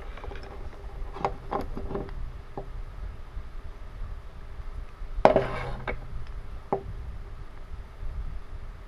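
Handling noise from wooden toy train engines turned over in the hands: a few light clicks and taps early on, one louder knock about five seconds in, and a last click shortly after.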